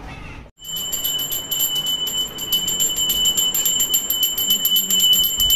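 A puja hand bell rung rapidly and continuously, with a fast even run of clapper strikes, about nine a second, over a steady high ring. It starts about half a second in.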